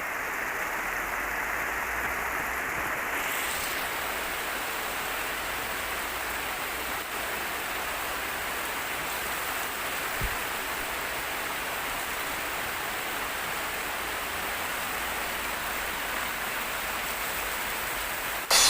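Steady hiss of heavy rain, with a single faint knock about ten seconds in.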